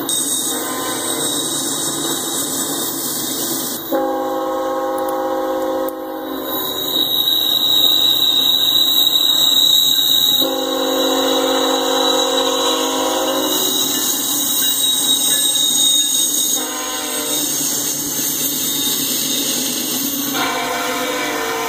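Diesel freight locomotive's air horn sounding over the rumble of a passing train: two long blasts, a short one, and a fourth starting near the end, the grade-crossing pattern.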